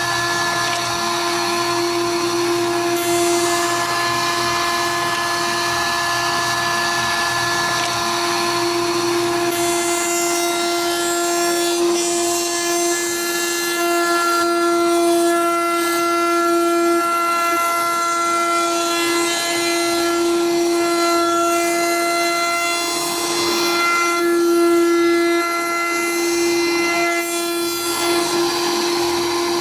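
Table-mounted router running at speed with a steady high whine while MDF pieces are fed by hand across it and shaped. A low hum underneath drops away about ten seconds in.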